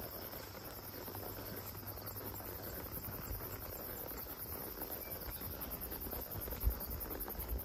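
Crickets chirping in a steady, high-pitched, pulsing chorus over a low rumble, with a single low thump near the end.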